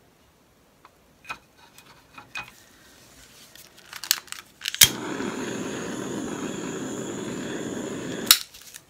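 A few light handling clicks, then a small handheld torch clicks on and hisses steadily for about three and a half seconds while passed over the wet paint, then clicks off.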